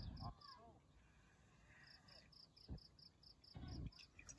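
Cricket chirping in a fast, even pulse of about six chirps a second, pausing for about a second and a half in the middle. A few dull low thumps come at the start and near the end.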